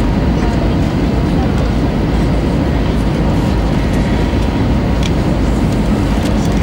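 Steady cabin noise of an Airbus A320-214 on approach, heard from a window seat behind the wing: the low drone of its CFM56-5B turbofans mixed with rushing airflow, loud and even throughout.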